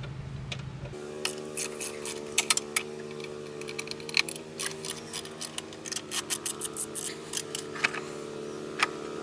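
Ratchet with a T40 Torx bit clicking in quick, irregular runs of strokes, loosening the winch's mounting bolts from the frame, over a steady hum.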